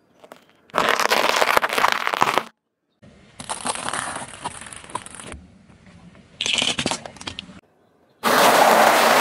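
Car tyre rolling over and crushing crunchy snacks on asphalt: several separate crunching, crackling passes of one to two seconds each, cut off abruptly between them. The last, starting near the end, is a pile of cheese balls being crushed.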